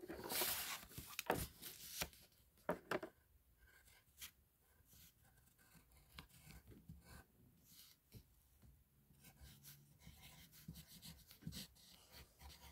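Faint scratchy rustling and a few light clicks, loudest in the first second, then scattered soft rustles.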